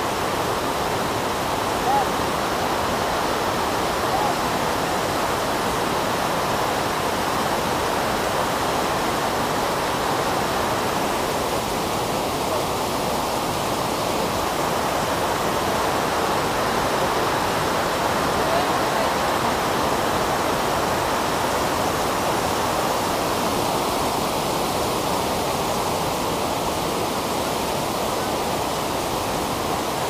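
Steady rush of water from Gullfoss, a large two-tiered waterfall, falling into its gorge.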